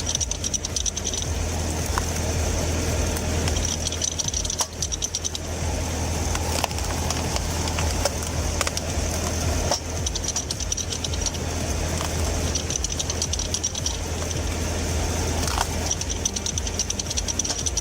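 Tractor-mounted screw splitter at work: a steady tractor engine drone under fast mechanical clicking, with a few sharp cracks of logs tearing apart.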